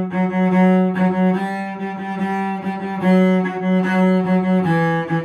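Solo cello bowing a fiddle-tune phrase in a long, short, short rhythm, repeating notes in its low-middle range and dropping to a lower note near the end.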